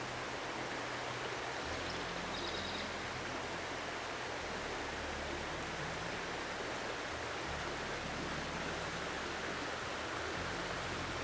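Steady, even outdoor background hiss with no clear single source, with a brief high chirping sound about two and a half seconds in.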